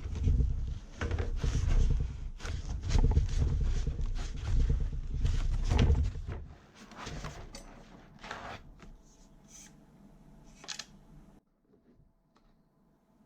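Hands handling and unpacking an airsoft rifle and its packaging: a busy run of clicks, knocks and rustles with a low rumble. It is loud for about six seconds, then turns to fainter scattered clicks that stop about eleven seconds in.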